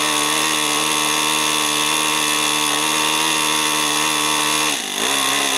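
Small O.S. .26 four-stroke model-airplane engine running steadily with an even buzzing note. Near the end it drops briefly, then picks back up with a wavering pitch.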